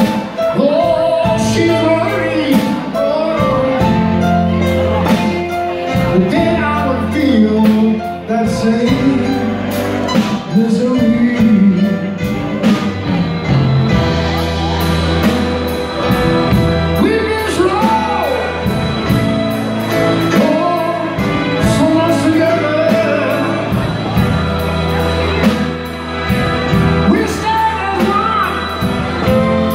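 Live soul band playing: a man singing over drums, congas, bass, keyboard and a horn section of saxophone and trumpets.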